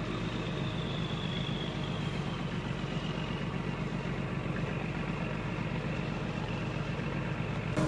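Steady low drone of an idling engine, unchanging throughout, with a faint high tone that slowly falls in pitch.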